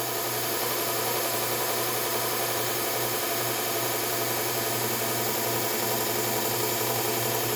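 Bucktool slow-speed belt sander/grinder running steadily with no load, its electric motor humming and the 120-grit abrasive belt turning.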